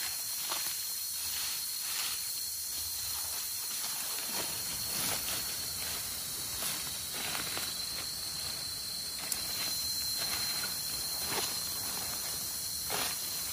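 Scraping and rustling of a small digging tool and fingers working the soil and dry leaves to dig termite mushrooms out of the ground, in short irregular strokes, over a steady high hiss.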